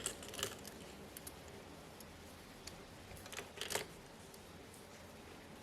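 Faint clicks and light taps of small phone parts being handled as the fingerprint scanner's ribbon cable is fitted to its connector, a few at the start and a cluster a little past the middle.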